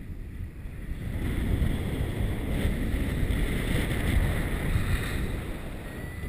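Airflow of a paraglider in flight buffeting the action camera's microphone: a steady, gusty wind rush that swells about a second in and eases slightly near the end.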